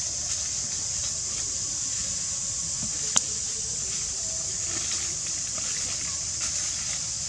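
Steady high-pitched drone of forest insects, with one sharp click about three seconds in.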